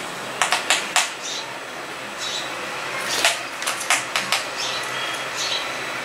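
House sparrow pecking at its reflection in a mirror: clusters of sharp taps, four about half a second in and another run of about six from three to four and a half seconds in, with a few faint short chirps between them.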